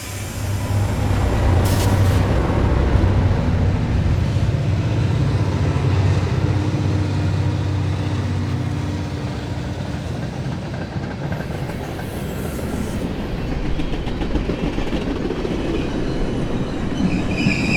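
Train running on rails: a heavy low rumble with rough rattling rail noise that builds up within the first second and holds steady. A high wheel squeal starts right at the end.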